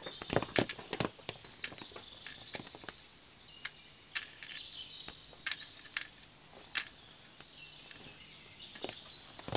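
Footsteps of booted soldiers walking on stone paving: a run of sharp, separate steps, thick in the first second or so and more scattered after. Faint bird chirping sounds behind them.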